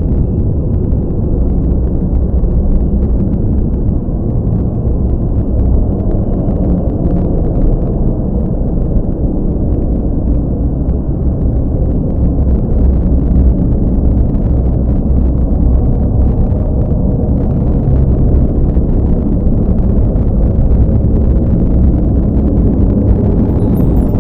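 A continuous deep rumble, steady in level throughout, with no distinct strikes or pitch.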